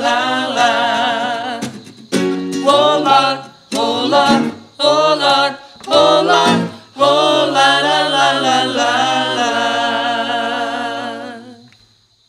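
Male and female voices singing together in harmony in short phrases with brief breaks, closing on a long held chord that fades out near the end.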